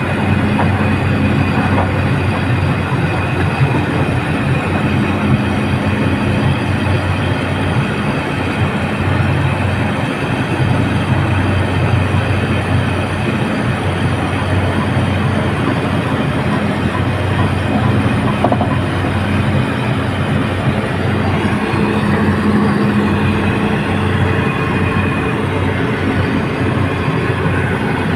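Excavator's diesel engine running steadily under load, a loud, even mechanical drone with a constant low hum.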